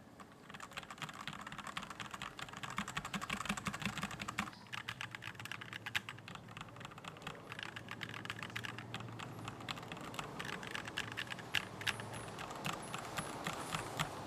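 Typing on a mechanical keyboard: a fast, continuous run of key clacks, with a brief pause about four and a half seconds in.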